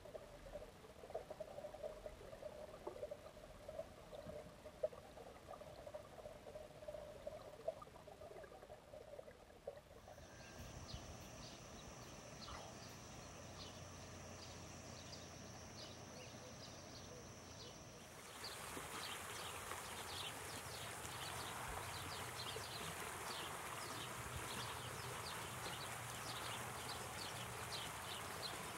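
Faint outdoor nature ambience dominated by insects: irregular faint sounds at first, then a steady high insect buzz from about ten seconds in, giving way at about eighteen seconds to a louder, dense chirring chorus.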